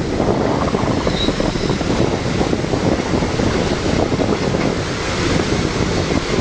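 Steady roar of a fast-flowing, flooded river, with wind buffeting the microphone.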